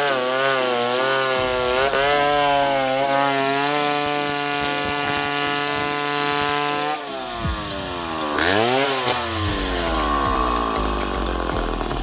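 Chainsaw running at full throttle on durian wood, its note wavering at first and then holding steady. About seven seconds in the throttle is released: the note falls, rises briefly once, and settles to idle.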